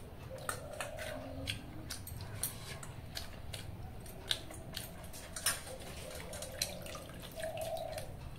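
Eating soaked rice (pakhala) by hand from steel dishes: irregular sharp clicks and taps of fingers against the steel, with wet squishing of the watered rice.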